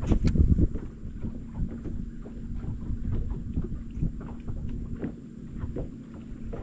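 Water slapping against the hull of a bass boat, with wind buffeting the microphone and many small irregular knocks. There are two sharp clicks right at the start, under a steady low hum.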